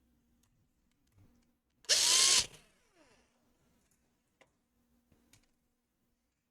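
Electric screwdriver driving a small screw into a laptop's case: one short whirr of the motor lasting well under a second, about two seconds in, followed by a few faint clicks.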